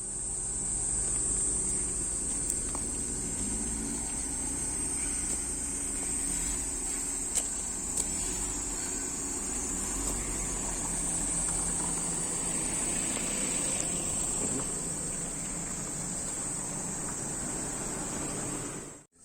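A steady, high-pitched insect chorus shrilling without a break, over a low rumble, with a few faint clicks.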